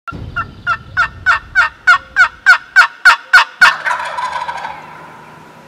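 Turkey yelping: a series of about a dozen evenly spaced yelps, about three a second, growing louder, then trailing off.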